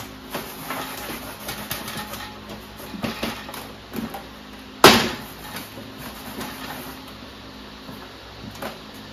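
A polystyrene Hive IQ beehive super being wiped down with a cloth to clean off excess glue and then handled. Soft rubbing and scuffing with light knocks, and one sharp knock about five seconds in.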